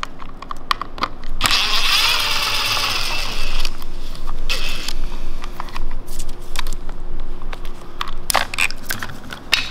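Cordless impact driver running for about two seconds as it backs out a screw on a winch control box. A ratchet wrench then clicks on the terminal nuts, with metal tools clinking.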